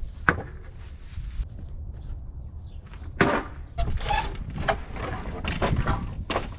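Scrap lumber being picked up and moved: a sharp knock near the start, then irregular knocks and scrapes of boards from about halfway through.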